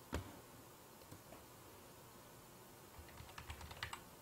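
Computer keyboard being typed on: a single key click right at the start, then a quick run of keystrokes about three seconds in.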